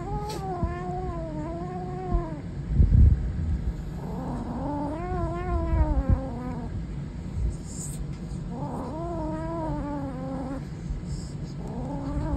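Savannah kitten growling: three drawn-out growls about two seconds each, wavering up and down in pitch, with a fourth starting near the end. A couple of low thumps come between the first growls.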